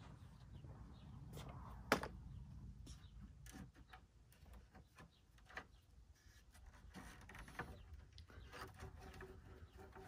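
Faint, scattered clicks and rustles of wires and a plastic brake-light bracket being handled, over a low, steady outdoor rumble. The sharpest click comes about two seconds in.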